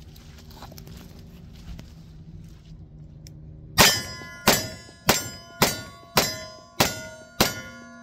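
Seven revolver shots fired in quick succession, about 0.6 s apart, starting a little under four seconds in, most likely from a Ruger GP100 7-shot. Each shot is followed by the clang of the bullet striking steel plate targets, which keep ringing after the last shot.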